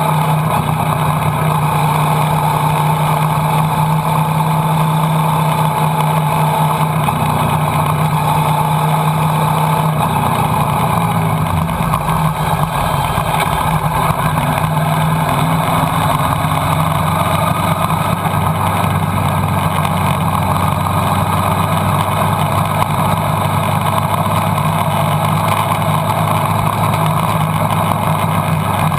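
Motorcycle engine running at a steady cruise with wind rushing past, heard from the riding bike itself. About ten to twelve seconds in, the engine note drops to a lower pitch and then holds steady again.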